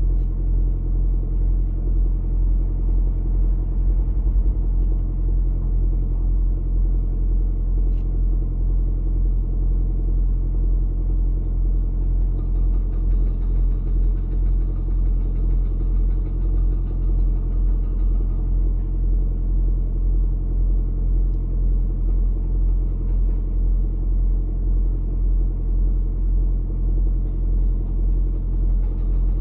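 Steady low drone of a car engine idling, heard from inside the cabin.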